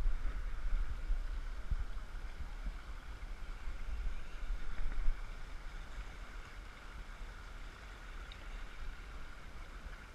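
River water rushing over a shallow riffle around a moving canoe, a steady noisy wash with a low rumble underneath; it grows quieter after about five seconds.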